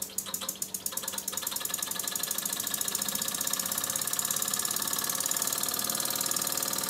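Burnac Vulcan model steam engine running on compressed air at about 10 psi: a rapid train of exhaust beats that starts slow as the flywheel is flicked and quickly speeds up into a fast, steady beat. The engine is running in its new bronze crankshaft bearings and sounds quite good.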